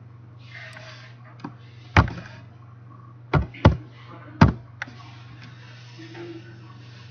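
A handful of loud, sharp clicks from a computer keyboard and mouse, spaced irregularly, over a steady low electrical hum.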